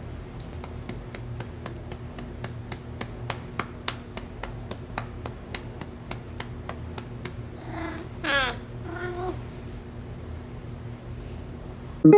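A domestic cat meows: one drawn-out call that rises and falls about eight seconds in, with shorter, fainter mews just before and after it. Before that, a quick run of short scratchy strokes, about four a second, from a grooming brush pulled through the cat's fur.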